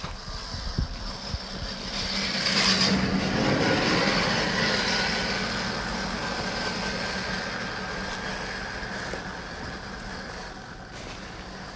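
A motor running with a steady hum, growing louder to a peak about three seconds in and then slowly fading.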